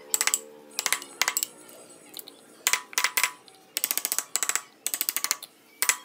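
A carving gouge driven into wood by a mallet, struck in short runs of quick light taps with brief pauses between them, each tap sharp with a slight ring.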